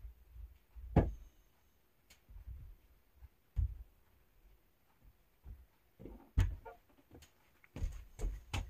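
A few scattered knocks and thumps of split firewood being handled and set down, the loudest about a second in and a quick cluster near the end.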